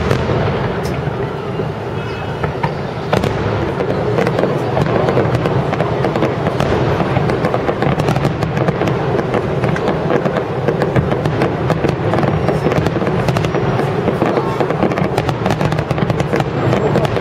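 A large aerial fireworks display in a dense barrage of shell bursts. Many sharp pops and bangs run over a continuous noisy wash, and they come thicker in the second half.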